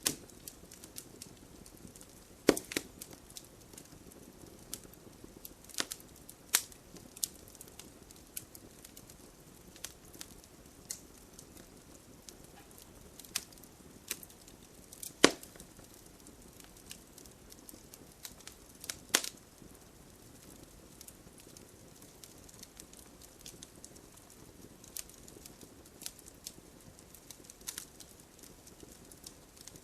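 Campfire crackling: irregular sharp pops and snaps from burning wood over a soft steady hiss, with a few louder pops about two and a half seconds in, near the middle and about two-thirds of the way through.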